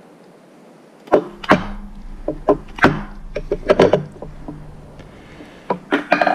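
A run of irregular knocks, clunks and taps from hands and tools working on the cast-iron table end, handwheel and lead-screw bearing of a Schaublin 53 milling machine. The knocks begin about a second in, with a steady low hum beneath them for a few seconds.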